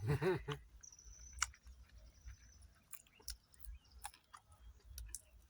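A person chewing food, with irregular small mouth clicks; a short voiced "mm" at the very start.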